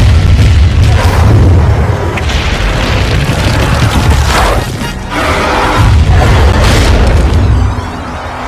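Cartoon fight soundtrack: dramatic music under a heavy, low booming rumble, with several sudden crashing impact effects as a giant ape and a tyrannosaur grapple.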